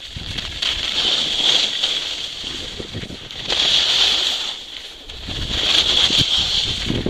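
Skis scraping and hissing over packed groomed snow, swelling and fading in a rhythm of turns about every two seconds, with wind rumbling on the microphone.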